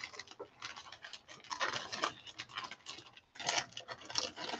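Faint, irregular rustling and small clicks of handling: a plastic packet being set aside and football equipment being rummaged out, coming in short bursts.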